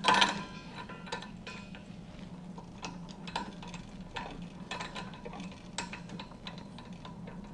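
Metal pressure regulator being screwed onto a nitric oxide gas cylinder's valve by hand: a loud clink right at the start, then a run of small irregular metallic clicks and scrapes as the fitting is turned.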